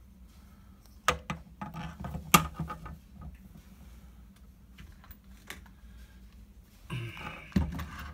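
Handling noise from a small metal turntable tonearm being turned over in the hand: a cluster of sharp clicks and knocks, the loudest about two and a half seconds in, a single click later, and rubbing near the end.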